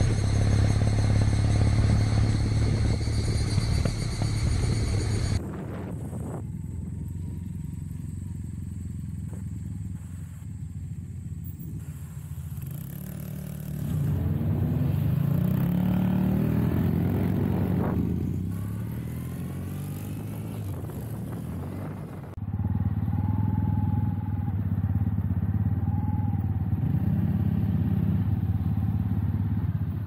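Kawasaki W800 parallel-twin motorcycle engine running steadily while riding. After a cut, motorcycles pass close by, their engine note rising and then falling about a quarter of the way through the second half. Near the end a motorcycle engine runs steadily again.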